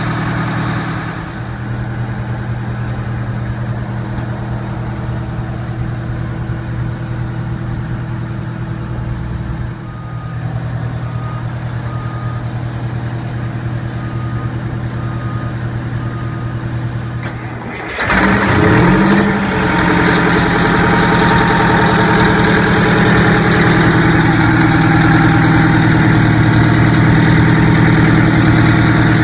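Detroit Diesel engine of a 1997 Oshkosh T-3000 aircraft rescue fire truck idling steadily. A little past halfway it suddenly becomes much louder and fuller, heard close up at the engine.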